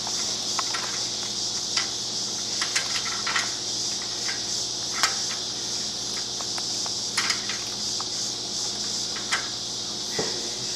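Scattered light metallic clicks and clinks as a flanged bolt is fitted and lined up in a motorcycle exhaust bracket, over a steady background hiss.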